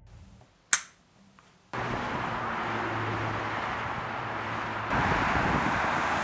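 A single sharp click over quiet room tone, then, about two seconds in, road traffic cuts in abruptly: a steady rush of passing vehicles with a low hum, growing louder about five seconds in.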